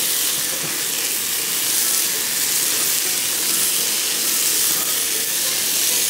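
Chopped mixed vegetables sizzling steadily in hot mustard oil in a kadhai as they are stir-fried.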